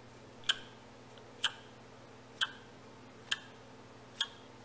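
Worn front strut bearing in a Subaru WRX strut top mount, turned by hand and clicking sharply five times, about once a second.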